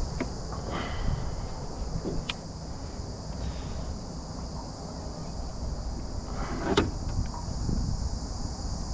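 Scattered knocks and clicks from handling a freshly caught fish on the deck of an aluminium boat while it is unhooked, the sharpest knock near the end. Under it, a steady high insect drone and a low rumble.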